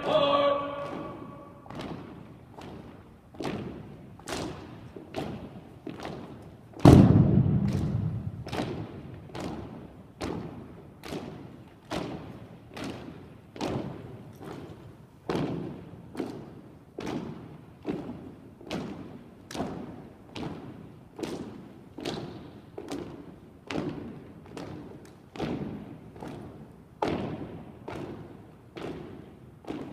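Drill team's rhythmic thuds on a hard floor, about one and a half to two a second, each with a short echoing tail. One much heavier, deeper thump comes about seven seconds in.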